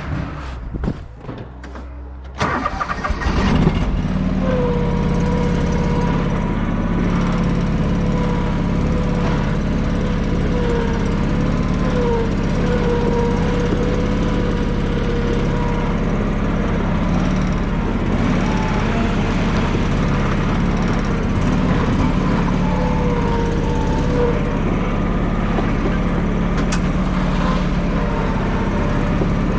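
A few knocks, then a vehicle engine starts about two seconds in and runs steadily, with a whine above it that wavers slightly in pitch now and then.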